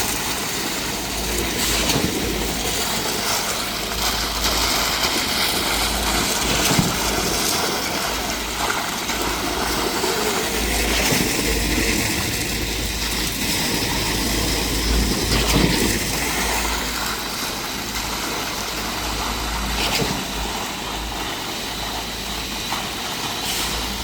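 A truck-mounted concrete pump's engine running steadily during a slab pour, with a low rumble and a few brief knocks.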